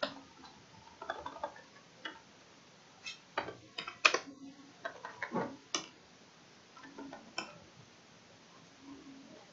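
Computer keyboard keys being typed, irregular sharp clicks that come singly and in small clusters, the loudest about four seconds in.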